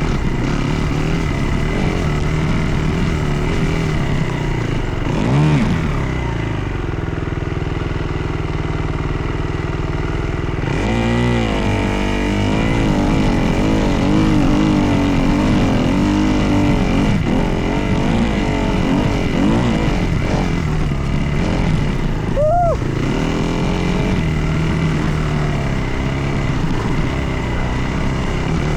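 Dirt bike engine running under changing throttle, its pitch rising and falling as it revs up and eases off, with quick sharp revs about five, eleven and twenty-two seconds in.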